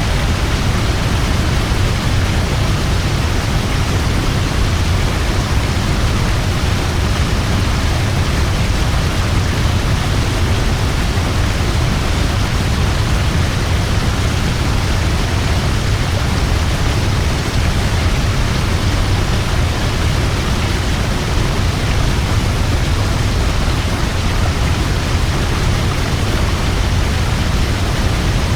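A large waterfall: water pouring and crashing in a steady, unbroken rush, heaviest in the low end.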